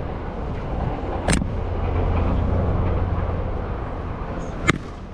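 Two sharp smacks about three seconds apart, typical of a baseball striking a glove, over a steady low rumble.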